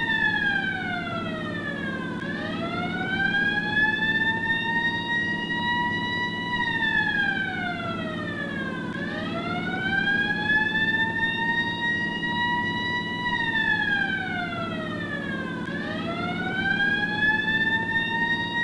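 1950s ambulance siren wailing: one tone slowly rising, then sliding back down, about every six and a half seconds, with the low point reached three times. A steady low hum runs underneath.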